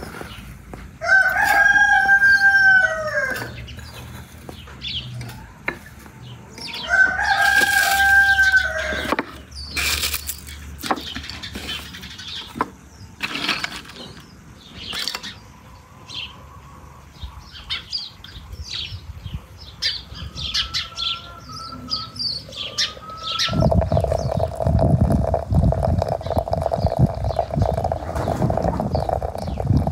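A rooster crows twice, each crow about two seconds long, followed by scattered light taps and clinks as small bowls of dried herbs are handled. Near the end, hot water pours in a steady stream from a samovar's tap into a glass teapot.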